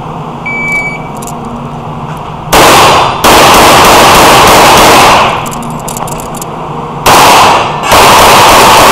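A short shot-timer beep about half a second in, then rapid pistol fire in two strings with a pause of about two seconds between them. The shots are so loud and echoing that they run together into long overloaded stretches.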